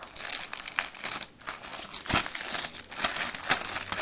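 Crinkling of the DVD case's clear plastic wrapping as it is crumpled and handled, with a brief pause a little over a second in.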